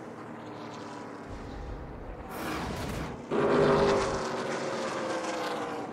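A NASCAR truck's V8 engine runs at low caution pace. About a second and a half in, a broadcast transition whoosh with a deep boom sweeps through. About three seconds in, loud race-truck V8 engines at speed cut in, their pitch sinking slightly.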